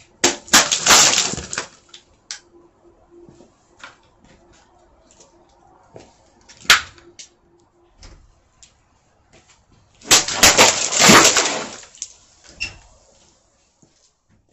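Plastic soda bottles struck and bursting, liquid spraying out in two loud splashing bursts: one about half a second in and one about ten seconds in. A single sharp crack comes between them.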